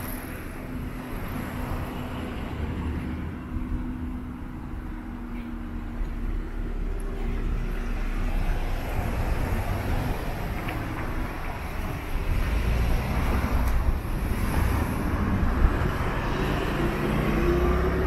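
Road traffic: a motor vehicle's engine and road noise, growing louder, with the engine note rising near the end.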